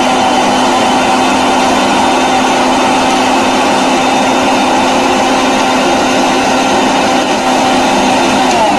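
Electric mixer grinder running steadily at high speed, blending plums with milk, sugar and ice. Near the end it is switched off and the motor starts to wind down, its whine falling in pitch.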